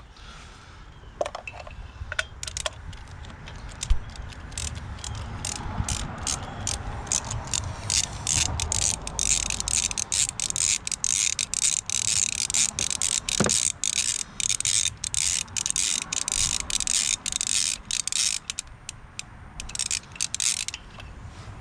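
Socket ratchet wrench clicking in quick bursts as it turns a spark plug in a 2017 Kia Forte engine.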